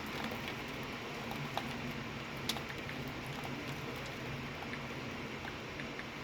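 Storm rain falling steadily, a dense patter with scattered sharper drop hits; two louder ticks come about one and a half and two and a half seconds in.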